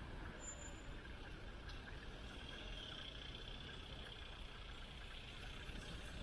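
Steady street traffic: cars driving along a city street, with an even hum.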